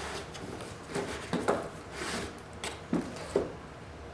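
Cardboard and molded-pulp egg crate packaging being handled and opened: a run of short scrapes and knocks, about half a dozen, spread over the few seconds.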